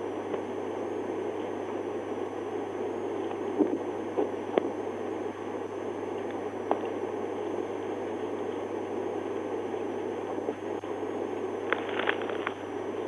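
Steady cabin noise inside a parked police cruiser: engine idling and fan hum with hiss from the dashcam's recording. A few light clicks and taps come through it, with a short cluster of them near the end.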